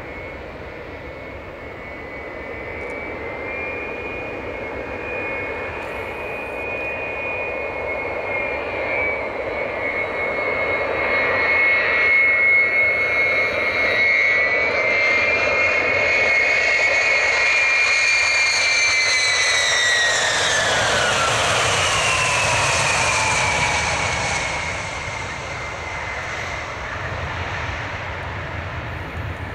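Tupolev Tu-154M's three low-bypass Soloviev D-30KU-154 turbofans on landing approach: a steady high-pitched whine grows louder as the jet comes in, then drops sharply in pitch as it passes, about twenty seconds in. A low rumble builds near the end as the jet touches down on the runway.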